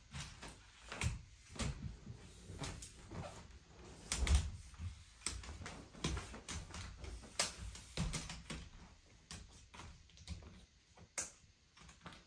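Victiv AT25 aluminum tripod being collapsed, with irregular clicks and snaps of the leg clasps being unclasped and knocks and slides of the telescoping leg sections. The loudest knock comes about four seconds in.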